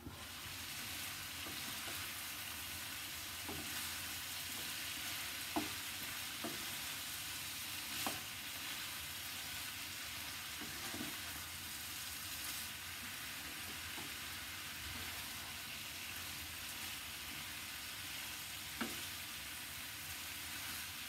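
Cubed turnip and potato sizzling in a frying pan, the sizzle coming up at once as the lid is lifted off. They are stirred with a wooden spatula that knocks against the pan a few times.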